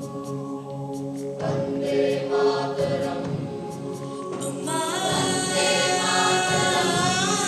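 Music with a choir singing long held notes; the sound grows fuller and brighter about five seconds in.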